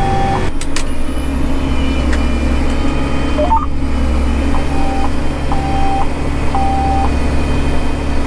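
Tractor engine running steadily, heard from inside the cab, with short electronic alert beeps from the cab monitor: one at the start and three more in a row after about four and a half seconds, as rows of the planter stop planting.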